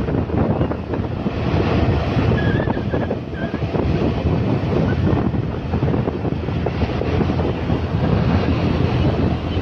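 Steady heavy wind noise buffeting the microphone as it moves along the road, a dense rushing rumble with no clear engine note. A few short high chirps come through near the middle.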